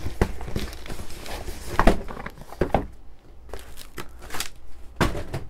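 Hands handling cardboard boxes: irregular rustles, scrapes and knocks of cardboard. The sharpest knocks come about two seconds in and near the end.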